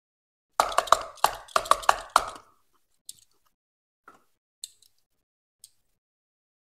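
Handling of a die-cast toy car and its cardboard box. A quick run of about eight sharp clicks and taps starts about half a second in, followed by a few faint, scattered ticks.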